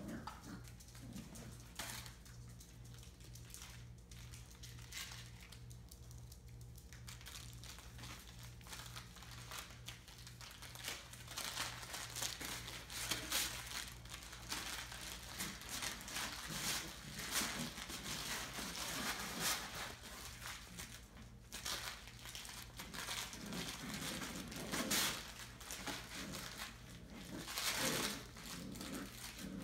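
Entlebucher puppies rustling and scrabbling in crinkly bedding material: an irregular crinkling and rustling, sparse at first and busier and louder from about a third of the way in, over a faint steady electrical hum.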